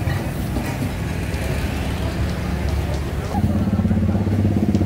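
Traffic noise with a running vehicle engine; about three seconds in, an engine hum comes in stronger and grows louder.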